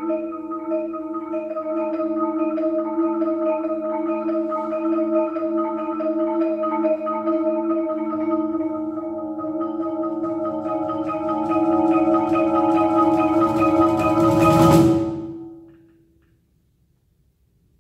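Percussion ensemble of marimbas, vibraphones and cajons playing a steady repeated pattern over held ringing tones. The playing grows louder to a peak and cuts off about fifteen seconds in, leaving a couple of seconds of near silence.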